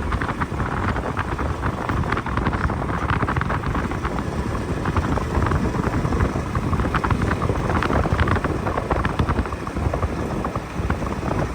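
Wind buffeting the microphone over a low, steady vehicle rumble, as when riding.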